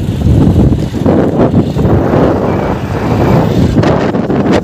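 Wind buffeting the microphone of a moving motorcycle, a loud fluctuating rush with the bike's engine and road noise underneath.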